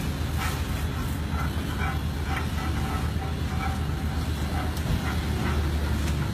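Steady low rumble of a running machine, with the level holding even throughout.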